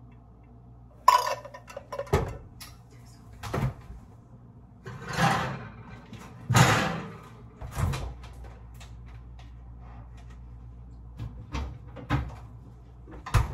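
Knocks, thumps and rustling of someone moving about a kitchen, opening and shutting a refrigerator door. About eight separate knocks, the loudest about a second in, with two longer rustles in the middle.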